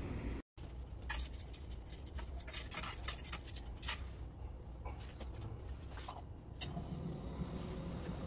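A quick run of sharp clicks and light metal clinks as a steel pot hung by a chain from a tripod and a small gas-canister camping stove set beneath it are handled, thinning out to a few single clicks.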